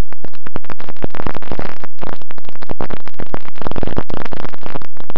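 Loud, heavily distorted crackle from the onboard camera's microphone on a foam RC plane in flight: wind and airframe noise clipped into dense, irregular clicks with brief dropouts and no steady motor tone.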